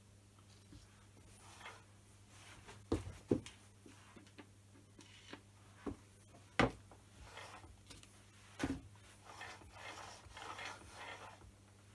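Scattered knocks and clunks from handling a Myford ML10 lathe's cast-iron tailstock as it is fitted back onto the lathe bed, several sharp single knocks, with softer scraping and rustling near the end as it is slid into place.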